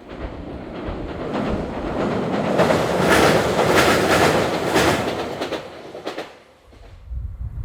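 Train passing: the rumble builds, wheels clatter over the rail joints, then it fades away.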